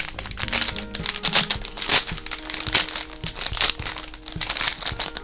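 Squishy toy packaging crinkling and rustling in rapid, irregular crackles as it is opened by hand.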